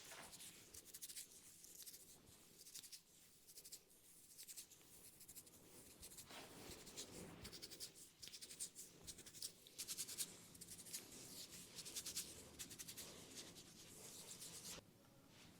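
Faint, rapid scratching and rubbing of fingers over the scalp and through the hair in a head massage, in quick runs of strokes that stop shortly before the end.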